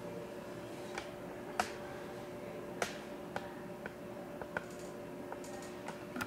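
A steady low electrical hum with about ten sharp little clicks at irregular intervals.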